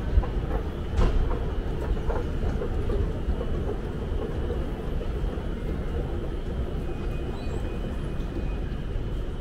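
Steady low rumble of an underground train station concourse, with a couple of sharp clicks about a second in.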